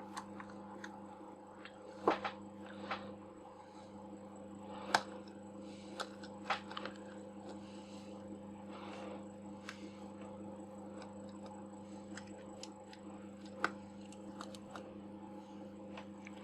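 Scattered small clicks and taps of metal lens parts and tools being handled while a Nikon 50mm f/1.4 lens is taken apart, over a steady low hum.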